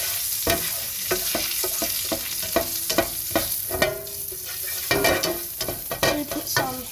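Frying pan of hot fat sizzling, with a steady hiss and many quick, irregular crackles and pops as the fat spits.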